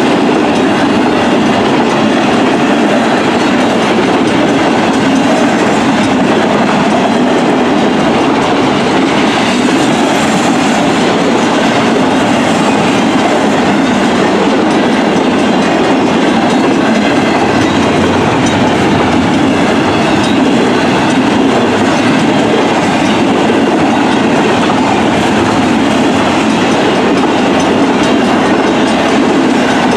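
Union Pacific double-stack intermodal train rolling past on the track: a loud, steady rumble of steel wheels on rail that never lets up.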